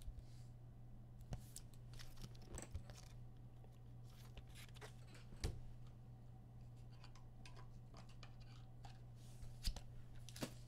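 Trading cards and packs being handled: faint scattered clicks and scrapes, a few sharper ones, over a steady low hum.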